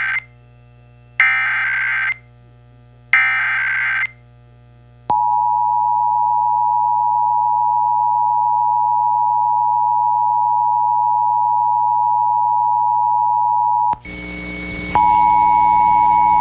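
Emergency Alert System test signal: the SAME digital header's warbling data bursts, about a second long with roughly a second between them, followed by the steady two-tone attention signal (853 and 960 Hz). About fourteen seconds in the tone breaks into hiss with a higher steady tone, and the two-tone signal returns a second later over it.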